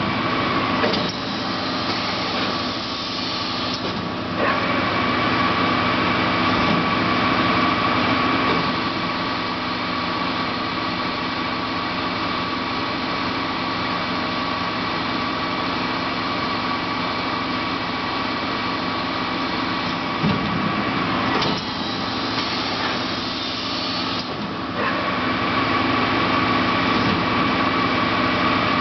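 Mubea CNC punching machine with a drilling/deburring unit running: a steady industrial machine hum with a high whine over it. The whine weakens twice for a few seconds, early on and again near the end, then comes back.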